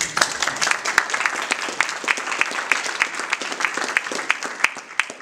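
Audience applauding: a dense patter of hand claps that fades away near the end.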